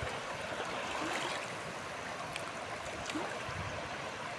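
Fast-flowing mountain river rushing, a steady wash of water noise.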